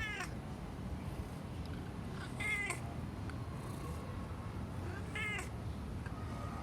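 A domestic cat giving three short meows about two and a half seconds apart.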